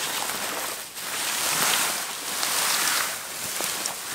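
Rushing hiss of forest ambience that swells and eases every second or so, with a few light clicks scattered through it.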